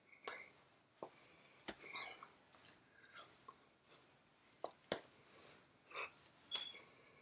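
Near silence broken by faint, scattered clicks and taps and soft breath and mouth noises from a person signing with his hands. The sharpest click comes about five seconds in.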